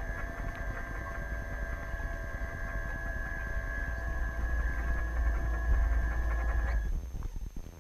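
Radio-controlled tug boat's drive motor running steadily, a high whine over a low rumble of vibration picked up through the GoPro mounted on the boat; the motor cuts off about seven seconds in.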